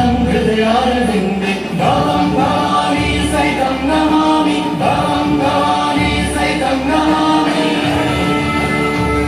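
Background music with singing voices holding long, sustained notes.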